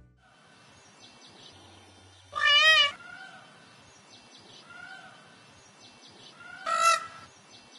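A cat meows twice: a long wavering meow about two seconds in and a shorter one near the end. Faint high chirping runs underneath.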